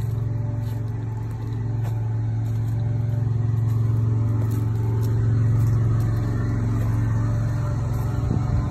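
An engine running steadily at one constant speed, giving an even low hum.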